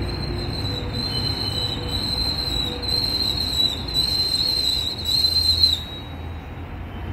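Metrolink bilevel commuter train rolling past the platform, its wheels giving a steady high-pitched squeal over a low rumble. The squeal cuts off suddenly about six seconds in as the last car clears.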